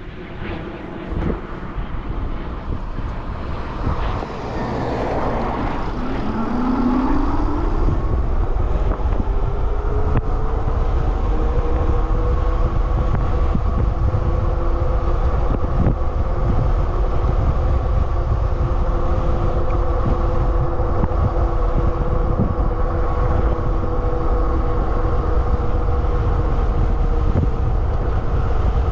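Super73 RX electric bike accelerating: a whine rises in pitch for a few seconds, then holds steady at cruising speed. Heavy wind rush on the microphone runs underneath.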